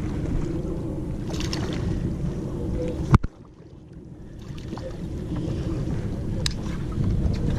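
Steady low rumble of a boat's outboard motor idling, with wind on the microphone. A single sharp knock comes about three seconds in, after which the sound drops away for about a second and then builds back.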